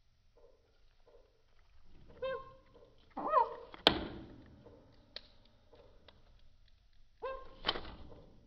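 Short pitched animal calls, one bending in pitch about three seconds in and another near the end, with a single sharp knock just before the four-second mark.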